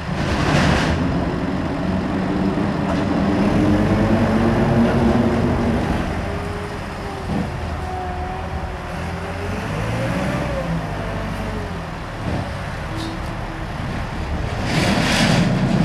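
Diesel lorry with a drawbar trailer manoeuvring slowly. Its engine runs throughout, its pitch rising and falling. Two short bursts of air-brake hiss come, one just after the start and one near the end.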